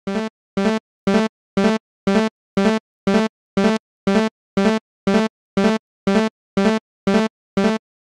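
Electronic railroad crossing warning bell sounding a steady train of short, clanging tones, about two a second, which grows a little louder in the first second and then holds steady: the signal that a train is coming and the barrier is down.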